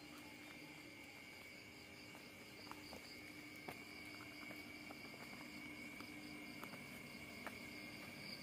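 Crickets chirring steadily: one continuous high trill with a second, pulsing higher-pitched cricket song above it. A few faint clicks come through.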